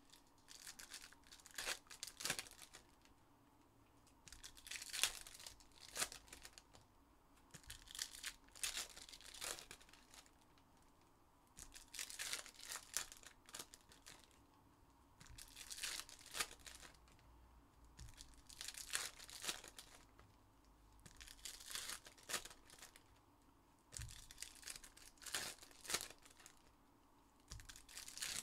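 Foil trading-card packs (2021-22 Panini Donruss Optic basketball hobby packs) being torn open and their wrappers crinkled, one pack after another. The tearing and crinkling comes in short bursts about every three seconds.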